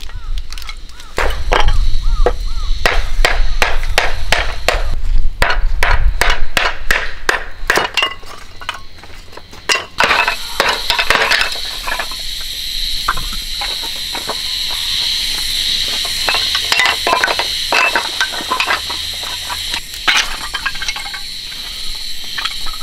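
A metal utensil stirring rice and liquid in an aluminium mess tin, with quick clinks and scrapes, about two or three a second, for roughly the first ten seconds. Then a wood fire of dry softwood kindling burns with a steady hiss and scattered crackles.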